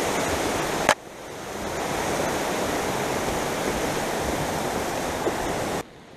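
Steady rush of a river running over rapids. It drops out abruptly about a second in, builds back up, and cuts off suddenly near the end.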